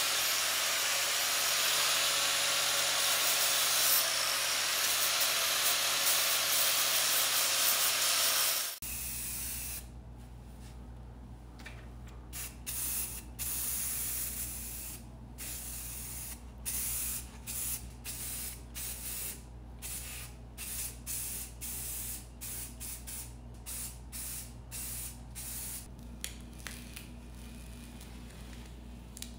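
Angle grinder running against the steel generator frame, grinding down spot-weld bumps, which cuts off suddenly about nine seconds in. Then an aerosol spray-paint can gives short bursts, roughly one a second.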